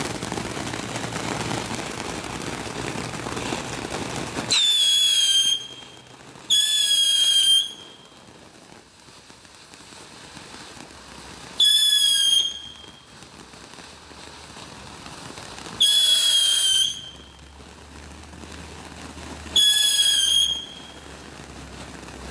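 Ground-fountain firework hissing as it sprays sparks, then five loud shrill whistles of about a second each, a few seconds apart. Each whistle dips slightly in pitch and then holds, and a quieter fizzing hiss runs between them.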